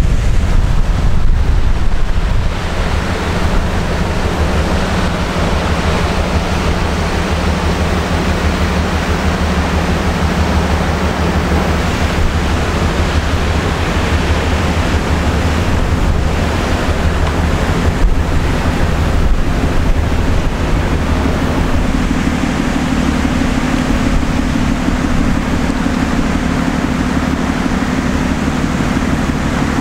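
Low, steady drone of a passing ship's engine under a rushing haze of wind on the microphone. A further low hum joins in about two-thirds of the way through.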